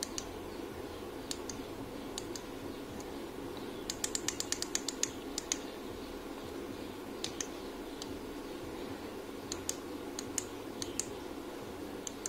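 Small push-buttons on a ring light's inline controller clicking as its lighting modes are switched. The clicks come singly, with a quick run of them about four to five seconds in, over a steady low hum.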